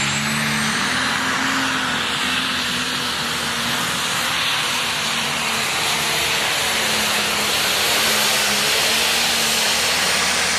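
Diesel pulling tractor running flat out under load as it drags a weight-transfer sled down the pulling track: a steady, loud engine note with a hissing whine over it.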